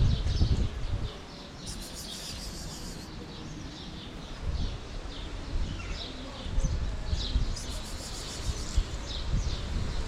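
Small birds chirping: many short, high chirps scattered over a steady low background rumble, which is loudest in the first second.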